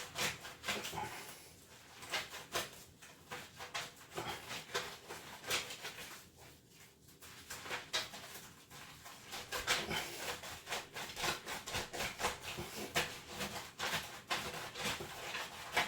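Laundry being scrubbed by hand: cloth rubbed in quick, irregular strokes, several a second.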